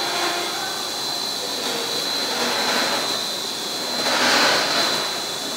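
HDPE plastic film extrusion machine running: a steady machine noise with a constant high whine, swelling louder about four seconds in.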